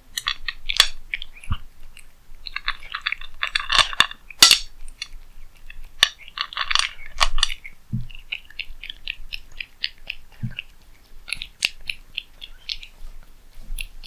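A cat chewing and crunching food close to the microphone, in quick bursts of crisp clicks with a few sharper clicks now and then.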